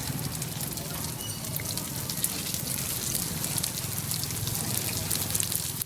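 Dense, steady crackling and spattering noise over a low hum.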